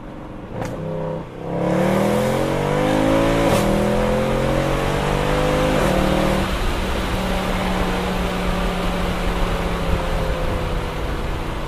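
Mercedes-AMG M156 6.2-litre naturally aspirated V8, with its secondary cats and resonators deleted, heard from inside the cabin under hard acceleration. The engine note climbs in pitch and drops sharply at quick upshifts about three and a half and six seconds in, then settles into a steady, slowly easing drone.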